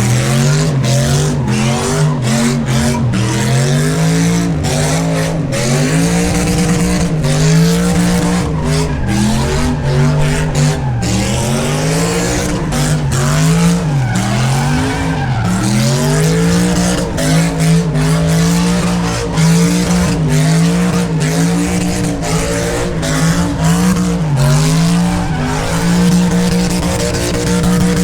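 V8 car engine running hard through a burnout, its revs rising and dipping over and over and held high near the end, over the hiss of spinning rear tires.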